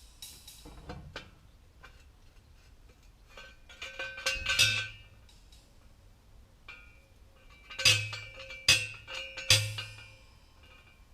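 Metal being struck hard: a run of clanks building to a loud hit about four seconds in, then three sharp ringing clangs a little under a second apart near the end, each with a low thud under it.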